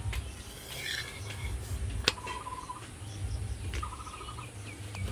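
Wood fire burning in a clay chula under an iron tawa where a flatbread is toasting dry, with a low rumble and one sharp click about two seconds in. A short, rapid trill repeats three times in the background.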